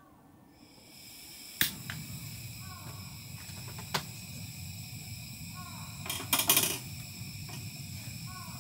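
A steady hiss that comes up about a second in, with sharp clicks about a second and a half and four seconds in and a louder rattle of clicks past the middle. A short falling chirp repeats about every three seconds.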